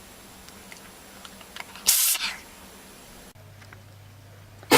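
Animal sneezes: one hissy sneeze lasting about half a second, two seconds in, then a much shorter, sharper sneeze over a low steady hum near the end.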